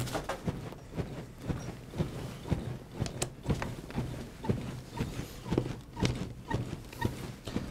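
A string of soft knocks and clicks from chest compressions on a resuscitation training manikin, with handling noise as defibrillator pads and leads are attached.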